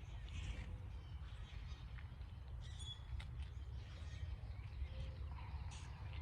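Birds chirping here and there over a steady low rumble, with a sharp click about three seconds in.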